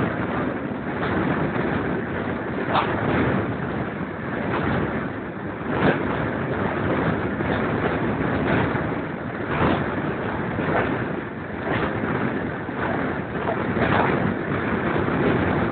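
Train carriage running at speed, heard from an open window, with wind rushing over the microphone and sharper knocks about once a second.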